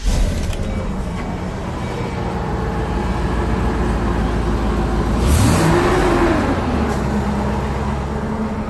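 V10 engine of a 26-foot U-Haul box truck running just after start-up, with one brief rev that rises and falls about five and a half seconds in.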